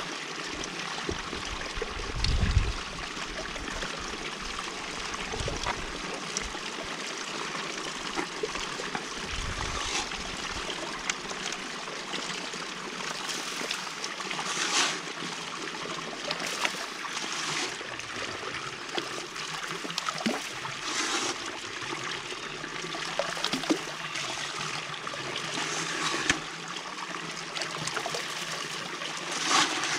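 Water running from a PVC pipe into a homemade hydrocyclone bowl made from an old Weber, swirling and draining through its centre outlet in a steady trickling rush. There are dull thumps about two seconds in and again around ten seconds, and a splash near the end as material is tipped in.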